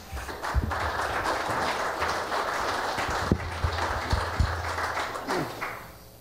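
Congregation applauding, steady clapping that dies away about five and a half seconds in, with a few dull thumps beneath it.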